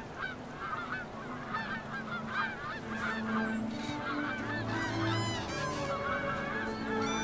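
A large flock of birds calling together, many short overlapping calls at once, growing louder about three seconds in.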